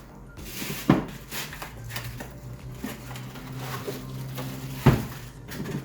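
Rustling and handling of the humidifier's box and packaging as it is unpacked, with two sharp knocks, about a second in and near the end.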